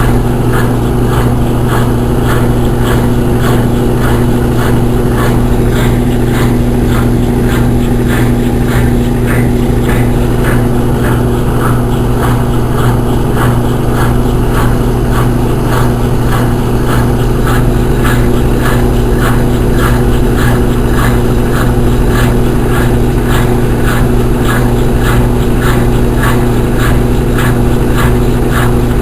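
Consul Maré Super 10 kg top-loading washing machine running in its spin cycle: a steady motor hum with a regular whooshing pulse about twice a second.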